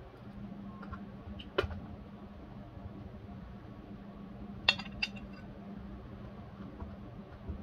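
A metal fork clinking against a ceramic plate and a metal baking tray while kofta is served. There is one sharp clink about one and a half seconds in and two more close together near five seconds, over a low steady hum.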